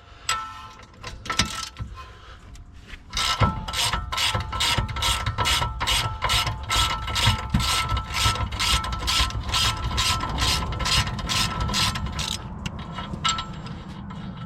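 Ratchet wrench clicking rapidly and steadily as it spins a 17 mm strut mounting nut loose, with a few slower clicks near the start and the end.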